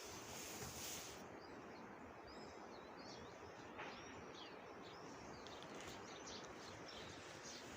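Faint birdsong: many small birds chirping and whistling in short, quick phrases over a steady outdoor background hiss, with a brief louder high hiss at the very start.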